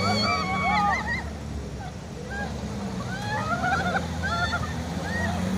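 An off-road jeep's engine runs with a steady low drone as it wades through the river. Over it come many short, high calls that bend up and down, loudest in the first second and thinning out after.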